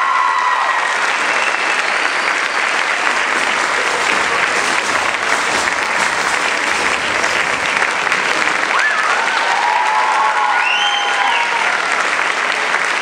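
Audience applauding steadily, with a few voices calling out over the clapping at the start and again about nine to eleven seconds in.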